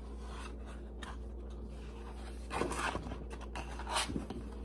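Hardcover picture book handled and its cover opened: brief rustling and scraping of paper and card about two and a half seconds in and again near the end, over a faint steady hum.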